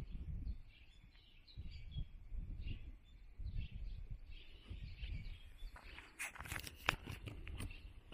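Small birds chirping over the footsteps of someone walking on pavement, the steps coming as low thuds about every half-second. A cluster of sharp clicks comes about six seconds in.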